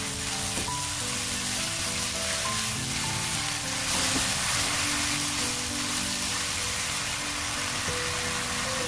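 Spinach and sliced shiitake mushrooms sizzling in a frying pan as they are stir-fried, the sizzle briefly louder about four seconds in. Background music with short melodic notes plays over it.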